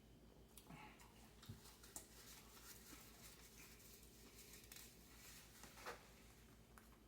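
Near silence: room tone with a low hum and a few faint, soft clicks and taps.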